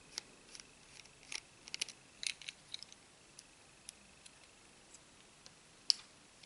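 Small screwdriver working a tiny screw out of a mobile phone's frame: scattered light clicks and ticks of the metal tip on the screw and the phone's parts, with one sharper click near the end.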